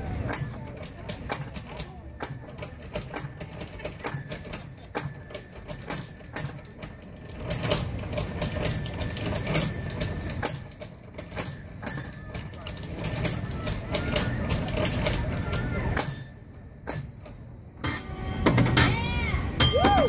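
A San Francisco cable car bell rung by its pull rope in quick, rhythmic runs of sharp strikes, each note ringing on. The strikes pause briefly about sixteen seconds in, then start again.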